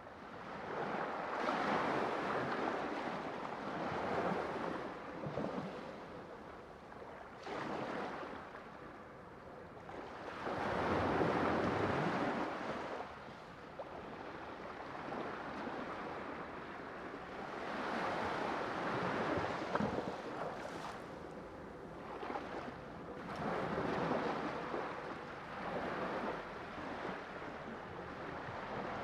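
Waves breaking and washing on a shore, the surf swelling and ebbing in slow surges a few seconds apart, with some wind.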